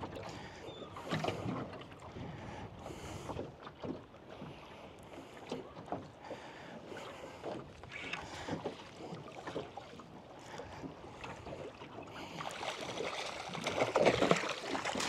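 Scattered knocks and handling noise aboard a small fishing boat, with a light wash of wind and water, while a mackerel tuna is played on rod and reel. The noise grows louder over the last few seconds as the fish is brought to the boat.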